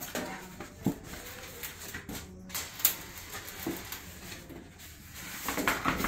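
Cardboard box being opened and handled: scattered light taps, scrapes and rustles of the cardboard, busier near the end.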